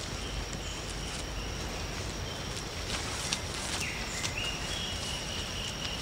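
Rainforest ambience: a steady high insect drone, short whistled bird calls (one falling in pitch about four seconds in) and a few faint crackles of footsteps in leaf litter.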